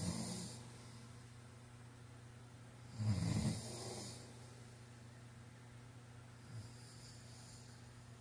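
A man snoring: two loud rattling snores about three seconds apart, each trailing off into a softer breathy exhale, then a faint breath near the end, over a steady low hum.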